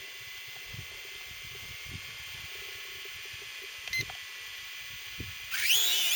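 A steady faint hiss with one short electronic beep about four seconds in; near the end, music comes in with a rising electronic sweep.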